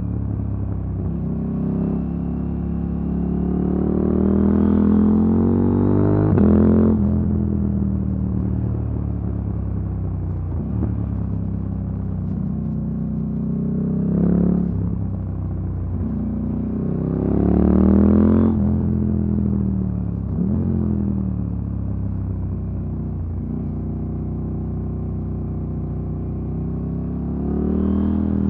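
KTM 890 Duke R's parallel-twin engine through an Akrapovic silencer and Arrow decat pipe, heard from on board while riding: the exhaust note rises in pitch under acceleration several times and drops away sharply each time, between stretches of steadier running.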